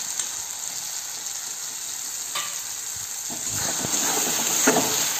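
Chopped tomatoes sizzling in hot oil and spice paste in a kadai. From about three seconds in, a steel spatula stirs and scrapes through the pan in repeated strokes, and the sizzling gets louder.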